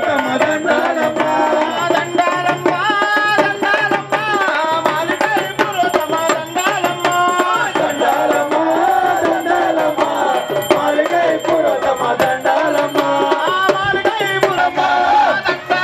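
Men singing an Ayyappa devotional song through hand-held microphones over a drum and other percussion keeping a steady beat of about two strokes a second.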